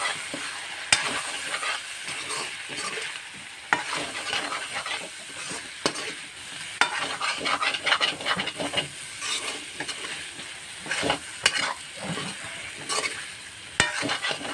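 Chicken frying and sizzling in a steel wok while a metal ladle stirs it, scraping across the pan, with a few sharp knocks of the ladle against the metal.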